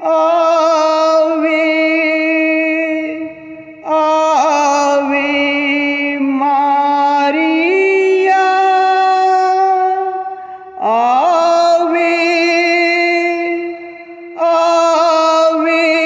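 A devotional song sung in a slow, chant-like puran style: long, drawn-out vocal phrases with vibrato, broken by short breaths between them.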